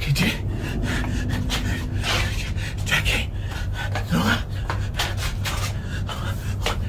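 Rubbing and scraping handling noise with scattered knocks from a handheld camera being swung about, over a steady low hum.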